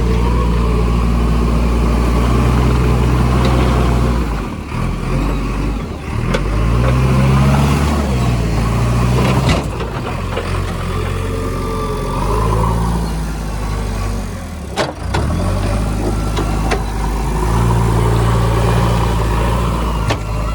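Heavy diesel engines running under load, the revs rising and falling several times, with a few sharp knocks.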